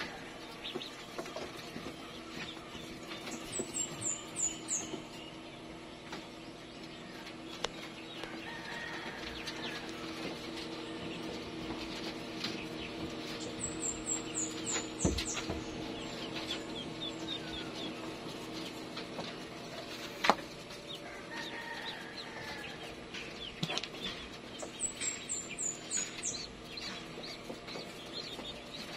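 Steady hum of a homemade egg incubator's small square circulation fans. Over it, a bird's short high descending trill comes three times about ten seconds apart, with scattered clucks and one sharp click about two-thirds through.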